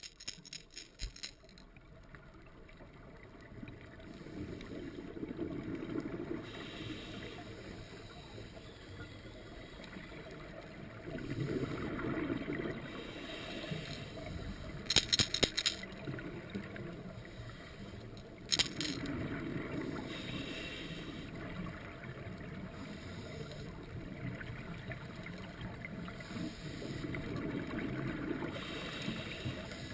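Scuba diver's regulator breathing heard muffled through an underwater camera housing: swells of exhaled bubbles about every seven to eight seconds, with hissing breaths between them. A few sharp knocks around the middle.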